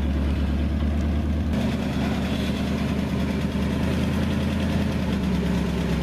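Engine of an old dump truck running steadily, with a change in its sound about a second and a half in.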